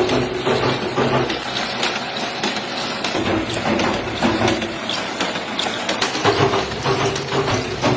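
Bottle-cap marking machinery on a syrup-bottle production line running, with a steady dense clatter of rapid clicks and rattles.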